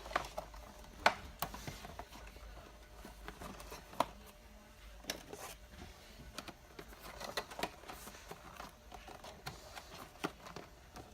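Irregular light knocks and clicks of small boxed products being handled and set into a store display fixture, the sharpest about a second in and about four seconds in.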